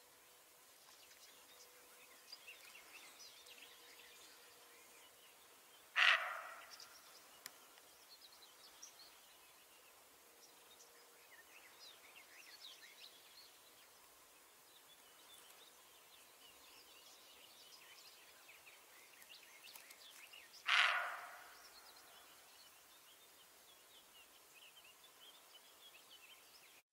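A deer calling twice, about fifteen seconds apart, each call short and sharp, over faint background birdsong.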